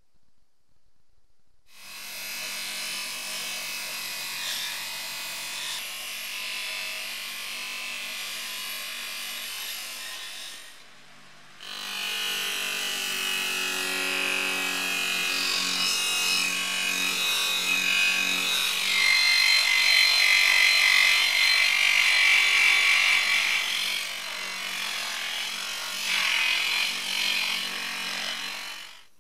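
A small electric power tool running and working against a surface, in two long stretches with a short break about ten seconds in; the grinding is loudest in the middle of the second stretch.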